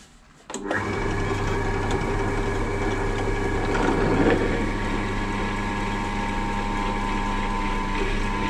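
Benchtop pillar drill starting up about half a second in and running steadily with a motor hum, its step drill bit cutting through 2 mm steel strip, with a louder, rougher patch of cutting around the middle.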